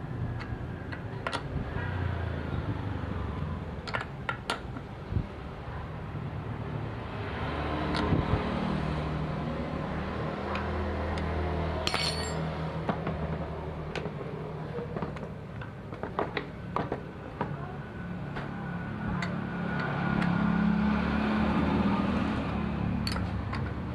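Scattered metallic clicks and knocks of hand tools and parts being handled while an outboard motor's steering neck is taken apart, over a steady low hum that shifts in pitch.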